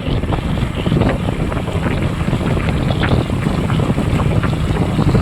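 Wind buffeting the microphone on a moving motorcycle, steady throughout, with the bike's engine running underneath as a low hum.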